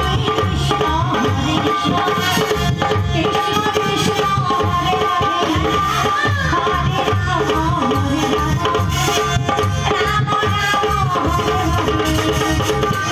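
Live kirtan music played through a PA: a hand drum beaten in a quick, steady rhythm under a keyboard melody that bends and glides in pitch.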